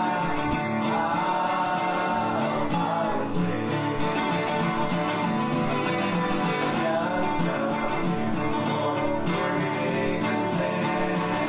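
Country-gospel song with acoustic guitar and a singing voice, played at a steady level.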